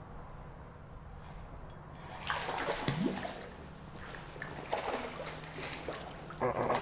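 Water splashing and sloshing in two bursts, about two seconds in and again around five seconds, over a steady low hum.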